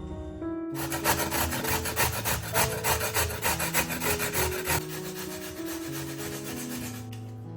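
Rapid, repeated rubbing or scraping strokes that start about a second in and stop near the end, over soft background music.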